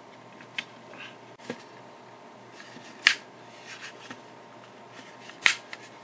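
Plastic remote control case snapping shut as its edges are pressed together: two sharp clicks about two and a half seconds apart, with a few faint plastic ticks before them.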